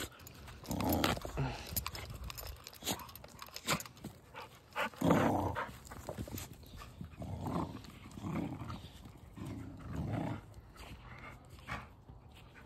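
A dog making short vocal sounds again and again, about eight in all, the loudest about five seconds in.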